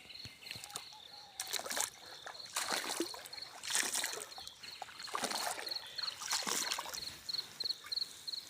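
Water sloshing and splashing in irregular surges about once a second as a fishing net is worked in the water, with an insect chirping in steady rapid pulses behind it.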